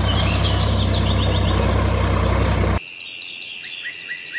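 A small engine running steadily at an even idle, cut off abruptly about three seconds in. After it, short bird chirps over a faint steady whine.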